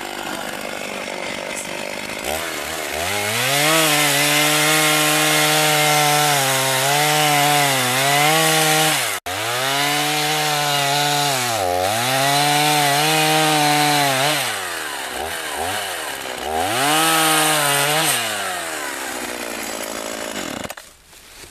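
1987 Husqvarna 50 Special two-stroke chainsaw revved up from a steady run to full throttle and cutting into a tree trunk, its pitch dipping and recovering several times as the chain bites under load. It eases off briefly, revs and cuts again, then the sound cuts off near the end.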